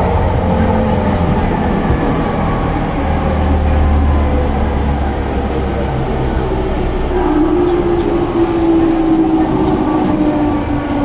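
Onboard running sound of a JR 209-1000 series electric train in motor car MoHa 209-1001. The running gear rumbles, and the whine of its early, unrenewed Mitsubishi GTO-VVVF inverter and traction motors slides down in pitch as the train slows.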